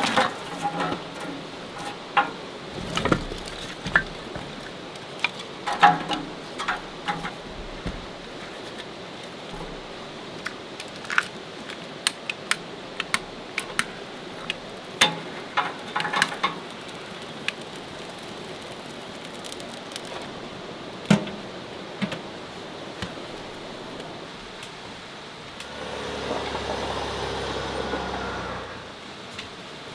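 Objects being handled: scattered clicks, knocks and clinks over a steady hiss, with a louder rushing noise lasting about three seconds near the end.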